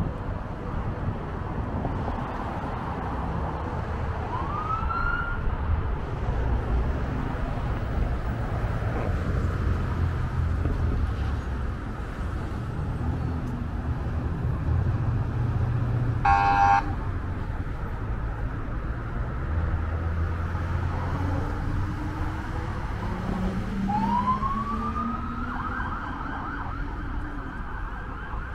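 Police car siren giving short rising whoops over the steady rumble of traffic on a busy multi-lane road, with a brief horn blast about halfway through. Near the end the siren settles into a steady high tone.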